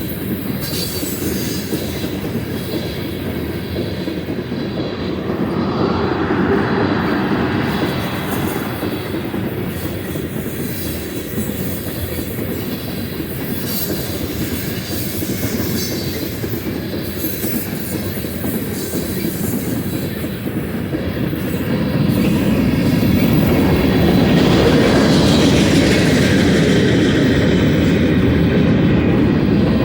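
Freight cars of a BNSF manifest train rolling past on the mainline: a steady rumble and rattle of steel wheels on rail. It swells louder twice, briefly about five seconds in and again for the last several seconds.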